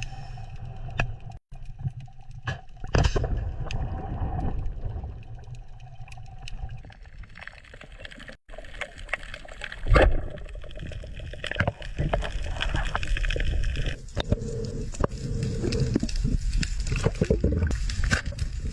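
Water sloshing and gurgling, with scattered sharp knocks and clicks throughout.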